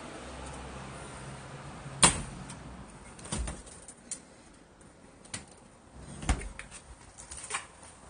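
An old refrigerator's doors being opened and handled. A sharp clack comes about two seconds in, followed by several lighter knocks and one more solid thud about six seconds in.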